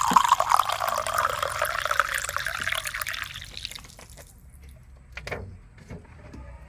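Water being poured in from a container, a steady splashing pour that tapers off and stops about four seconds in.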